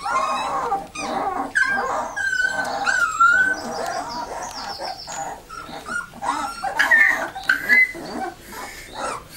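Alaskan Malamute puppies whining and squeaking, many short high-pitched cries overlapping one another.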